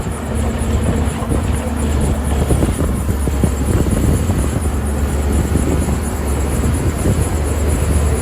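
Heavy tracked earth-moving machine's diesel engine running steadily with a deep drone, over continual metallic clanking and rattling.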